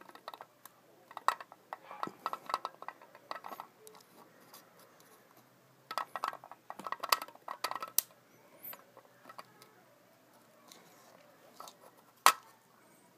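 Flathead screwdriver working at a gauge's crimped metal bezel lip, giving bursts of small scraping clicks and clinks of metal on metal and glass, with one sharp click about twelve seconds in.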